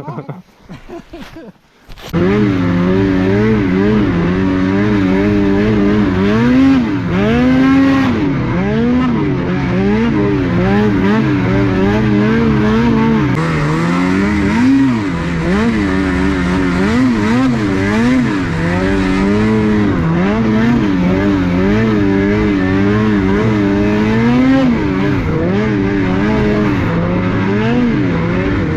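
Snowmobile engine running hard on the trail, its pitch rising and falling again and again with the throttle; it comes in loud about two seconds in.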